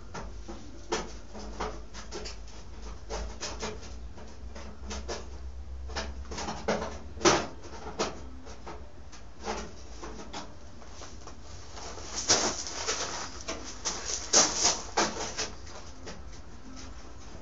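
Irregular knocks, taps and scrapes of metal parts being handled and worked, with a denser run of scraping and clatter near the end.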